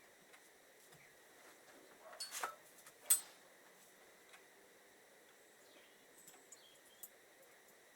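Small metal carburettor parts being handled on a workbench: a few light clicks, then one sharp clink about three seconds in, with faint ticks later.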